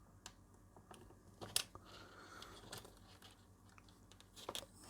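Faint handling sounds of wires and small parts being connected: a few scattered light clicks and rustles, the sharpest about one and a half seconds in.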